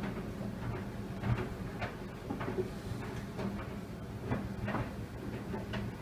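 Tumble dryer running at the start of a timed drying program: a steady motor hum from the turning drum, with irregular soft knocks two or three times a second as the load of wet microfiber cloths and mops tumbles.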